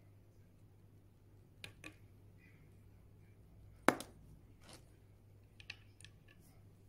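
Handling noises: a few light clicks and one sharp, louder knock about four seconds in, over a steady low hum.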